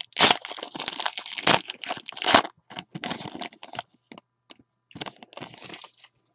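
Foil wrapper of a pack of football trading cards crinkling as it is torn open and peeled away, densest in the first two and a half seconds, then scattered rustles.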